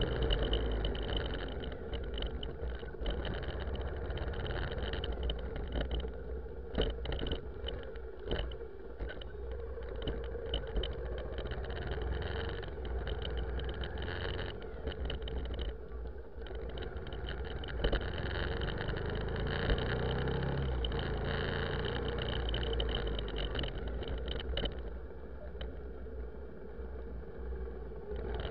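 Car driving on a wet road, heard from inside the cabin: steady engine and road rumble with a few short knocks.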